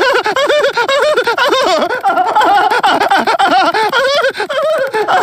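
A cartoon toddler's voice gives a continuous stream of high, wavering giggling and squealing, the sound of a hyper sugar rush.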